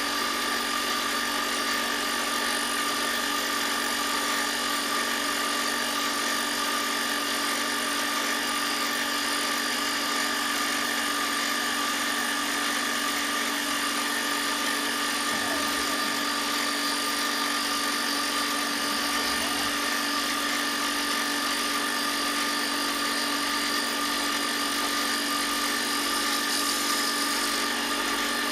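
A power tool's motor running at a constant speed: a steady whine made of several fixed tones over a rushing noise, with no change in speed or load.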